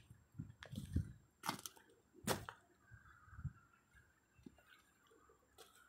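Faint footsteps on gravel and handling noise from a handheld camera: a few soft thumps and sharp clicks, the sharpest a little over two seconds in.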